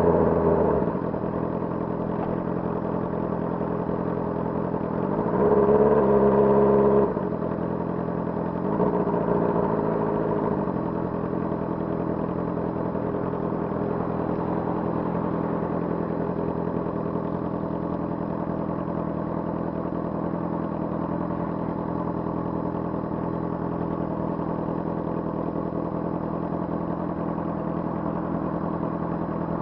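Honda CBR600RR inline-four engine settling to a steady idle as the revs fall away in the first second. About five seconds in it is revved to a higher, steady pitch for under two seconds before dropping sharply back to idle, with a smaller blip of the throttle around ten seconds in.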